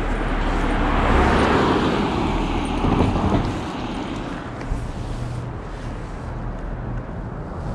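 A car driving past on the street. Its tyre and engine noise swells to its loudest about a second in, then fades as it moves away, dying down by about four seconds in.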